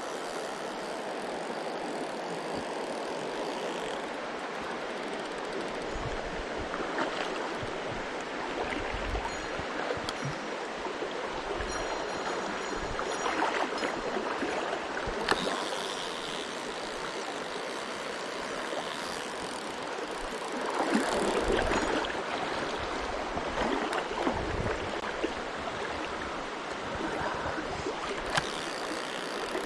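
Mountain stream flowing steadily, a continuous rush of running water, with scattered low thumps and a louder stretch a little over two-thirds of the way through.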